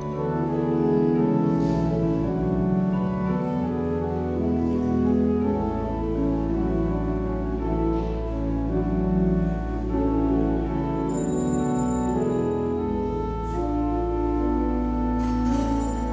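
Organ music: slow, held chords that change every second or two over a sustained deep bass note.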